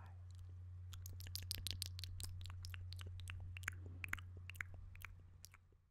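Wet mouth sounds close to the microphone: quick sucking clicks and smacks, many in a row, thinning out and fading away near the end.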